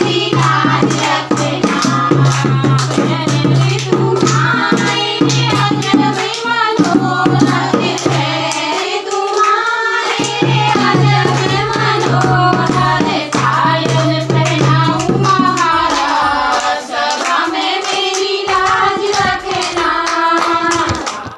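A group of women singing together, accompanied by a dholak drum beat and hand clapping, with a steady low drone under the voices that breaks off twice.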